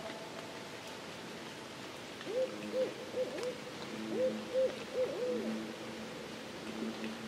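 An owl hooting: a run of about six short hoots between roughly two and five and a half seconds in, over a field recording's faint background hiss.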